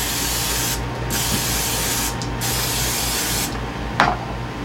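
Aerosol cooking spray hissing into a metal muffin tin in three bursts of about a second each, stopping about three and a half seconds in. A brief sharp sound follows near the end.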